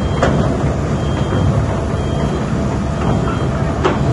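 Excavator diesel engine running steadily under load with steel tracks clattering, and a couple of sharp metal clanks, one just after the start and one near the end.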